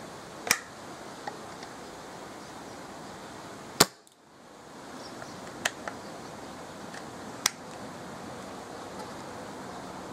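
Homemade pre-charged pneumatic airgun firing: several sharp cracks a couple of seconds apart, the loudest about four seconds in, over steady wind noise on the microphone.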